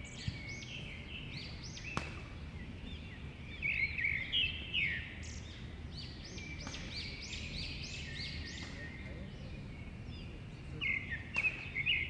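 Bouts of rapid, high, arched chirping calls from small animals, repeated in clusters, over a steady low rumble. A single sharp click about two seconds in.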